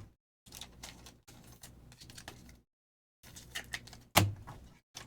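Trading cards handled and laid out on a table: small clicks, taps and rustles, with one sharper knock about four seconds in.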